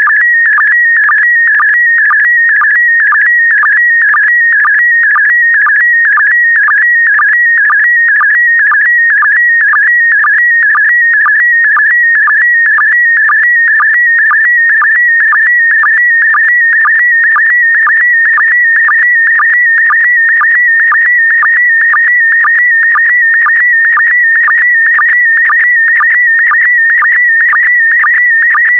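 Slow-scan television (SSTV) image transmission in PD120 mode: a loud, continuous high warbling tone that jitters as it carries the picture's brightness and colour line by line, broken by short, lower sync blips about twice a second.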